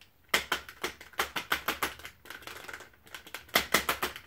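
Metal socket wrench clicking and rattling as a nut stuck in it is worked loose: a rapid, irregular series of sharp metallic clicks, softer for a moment in the middle.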